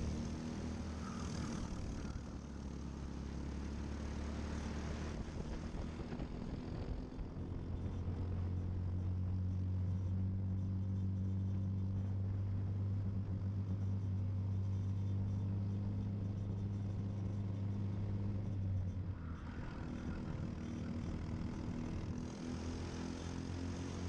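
Briggs & Stratton LO206 single-cylinder four-stroke kart engine running at race pace, heard onboard. The engine note dips about five seconds in, then rises and holds steady for about twelve seconds before dropping again a little before the end.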